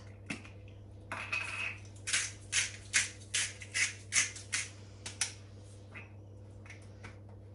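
Hand-twisted pepper mill grinding peppercorns over a pan in a run of short twists, about two a second, with a few fainter twists near the end.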